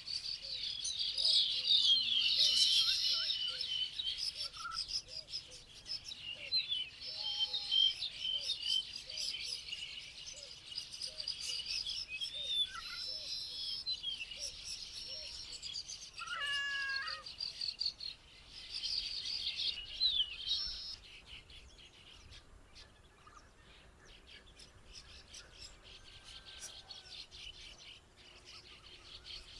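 Several wild birds chirping and singing over one another, with a low short call repeated under the high twittering. The birdsong thins out about two-thirds of the way through, leaving faint ticking.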